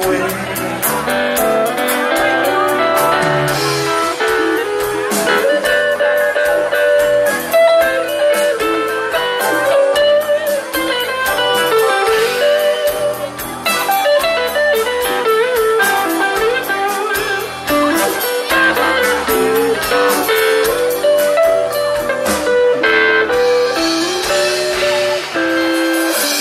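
Live rock band playing an instrumental passage without vocals: a melodic guitar lead over a steady beat of sharp drum hits.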